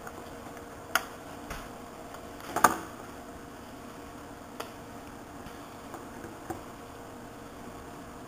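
A handful of light, sharp clicks and taps from a small screwdriver and tiny screws being refitted into an iPod's metal case, the loudest a quick double click about two and a half seconds in.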